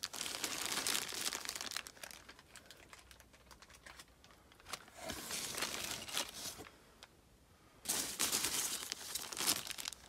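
Foam packing peanuts and small zip-lock plastic bags rustling and crinkling as hands dig through a packed box, in three spells of a second or two each.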